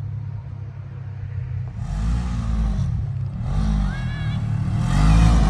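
A car engine revving up and easing off three times in a row, over a low rumble that grows louder.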